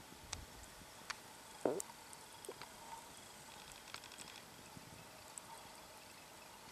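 Wood campfire embers crackling faintly, with scattered sharp pops and one louder short pop about a second and a half in.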